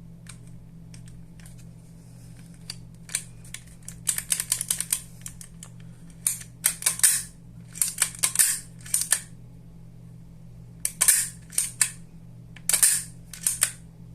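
Metal clicks and snaps from a VFC MP5 SEF trigger pack, with its hammer cocked by hand and dropped by the trigger, in irregular clusters and some quick runs of clicks: a dry function check of the trigger group after reassembly.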